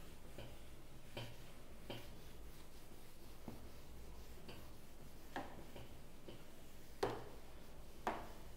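A pen tapping and clicking while notes are written, about six light taps at uneven intervals, the two loudest near the end, over a low steady hum.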